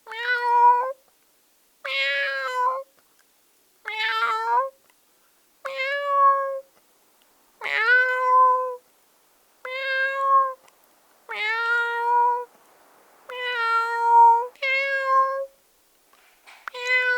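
A person imitating a cat's meow with the mouth: about ten separate meows, each under a second long and fairly steady in pitch, repeated roughly every two seconds.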